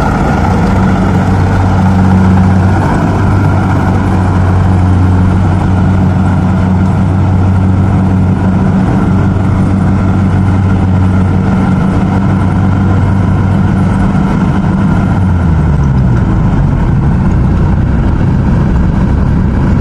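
Rice combine harvester's diesel engine running loudly and steadily; about fifteen seconds in its pitch drops as the engine slows down.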